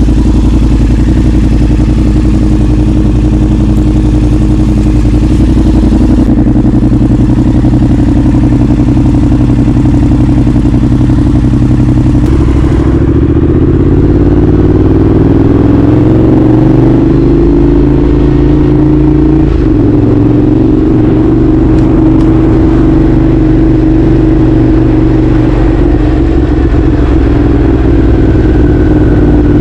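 Yamaha R7's 689 cc parallel-twin engine running through an Akrapovic exhaust while riding, loud and continuous. The engine note shifts in steps a few times and climbs slowly through the middle as throttle and speed change.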